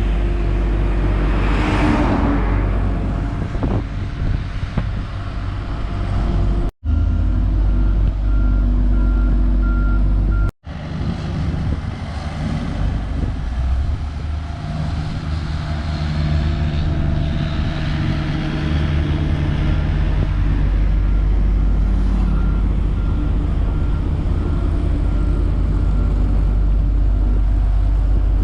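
Heavy road-construction vehicles' diesel engines running with a steady low rumble, and a reversing alarm beeping twice for a few seconds, the second time near the end.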